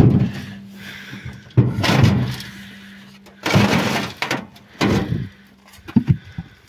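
Heavy chestnut log sections being rolled, tipped and set down on a trailer bed: a run of heavy wooden thuds and scrapes, the loudest about one and a half and three and a half seconds in, with smaller knocks near the end. A faint steady hum runs under most of it.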